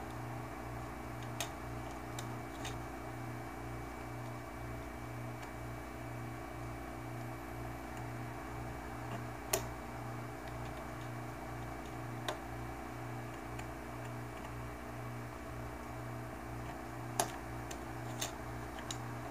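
Scattered sharp clicks and ticks of a metal blade tip scraping at the power-line traces on an LCD panel's control board, cutting them. Beneath them a steady low hum pulses about twice a second.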